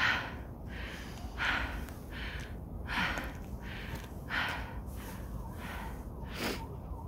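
A person breathing hard, drawing in and blowing out air about every second and a half: out of breath from climbing a mountain trail.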